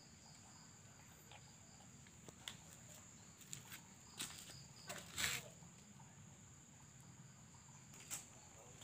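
Faint, steady high trill of crickets, with a second, lower trill that stops about halfway. A few soft short noises occur, the loudest about five seconds in.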